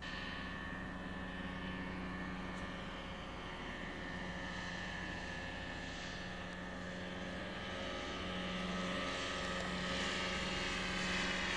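Cessna 152's propeller and four-cylinder piston engine running at taxi power, a steady drone that grows somewhat louder near the end and then cuts off suddenly.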